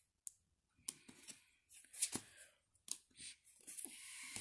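Stiff paper game cards being handled and spread out on a board game's board: a few light clicks, then a rustle of paper near the end.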